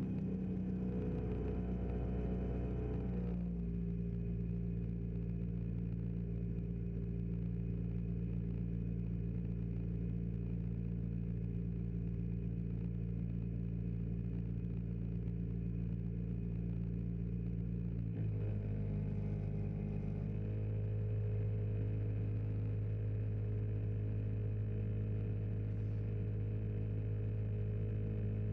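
Fly Synthesis Storch S ultralight's engine and propeller droning steadily, heard from inside the cabin. The engine note drops a few seconds in, then changes again about 18 seconds in and runs fuller and louder.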